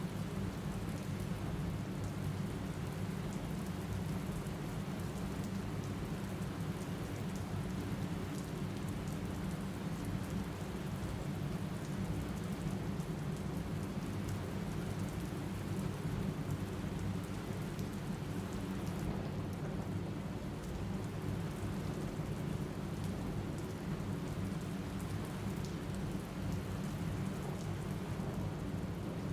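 Steady rain falling, with a continuous low rumble underneath and faint patter of drops.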